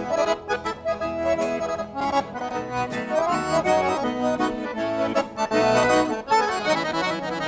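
Accordion playing a lively instrumental passage of a gaúcho folk song over a steady beat.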